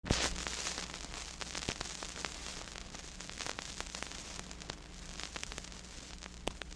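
Old analog recording noise: a steady hiss dotted with scattered crackles and clicks, over a low steady hum. It is loudest in a short surge right at the start.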